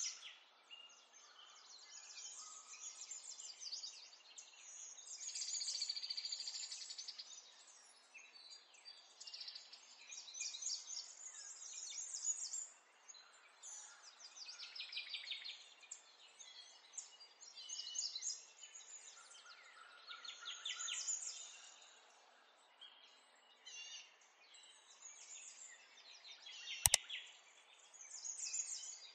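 Birds chirping and trilling, one short song after another over a faint steady hiss, with a sharp click near the end.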